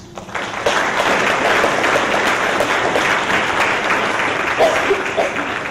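Audience applauding, a dense patter of many hands clapping that swells quickly about half a second in and begins to die away near the end.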